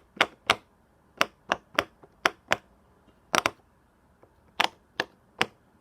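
Silicone pop-it fidget toy being pressed bubble by bubble: a string of about a dozen sharp pops at an uneven pace, with a pause near the middle.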